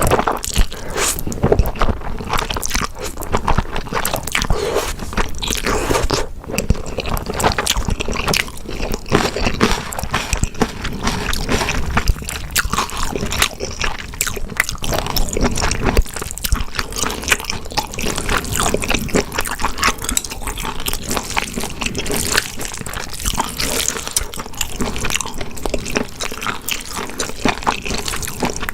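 Close-miked eating sounds: a person biting and chewing food, with wet, squishy smacks and crunches coming irregularly throughout.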